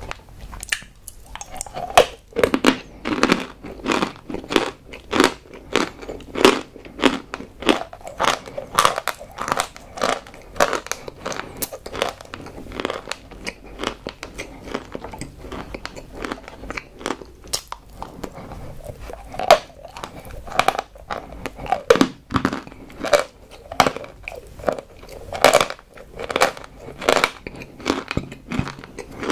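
Close-miked crunchy chewing: a person biting and chewing something hard and brittle. The crunches start about two seconds in and come several times a second.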